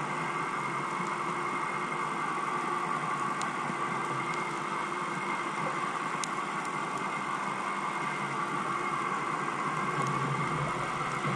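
A steady, unchanging mechanical hum heard underwater through the camera housing, with a few faint sharp ticks.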